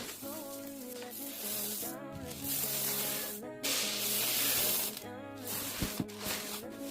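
Background music with a melody, over which dry hamster food mix rustles and hisses loudly in two spells around the middle, as it is poured and mixed.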